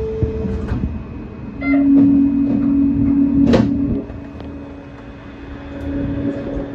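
Shonan Monorail 5600-series suspended monorail car departing a station, heard from the cab. A steady low tone sounds for about two seconds and ends in a sharp knock. The car then pulls away with a fainter steady hum and rumble.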